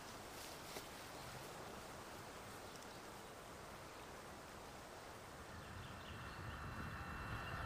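Faint, steady outdoor background noise, an even hiss with no distinct events. Faint music tones come in near the end.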